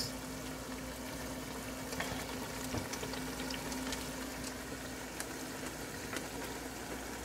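Thick curry masala simmering in a pot, bubbling and sizzling softly with small scattered pops as it starts to boil, stirred with a wooden spoon.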